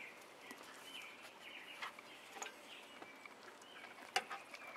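Dog licking a plate clean, its tongue making scattered soft wet clicks, with a sharper click about four seconds in. Small birds chirp faintly in the background.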